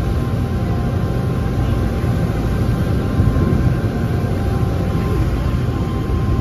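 Water taxi's engine running steadily while the boat is under way, with a constant rushing of wind and water over it.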